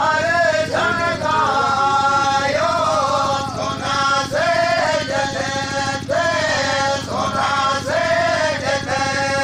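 A group of men singing a chant together in repeated short phrases, the melody rising and falling with brief breaks between lines.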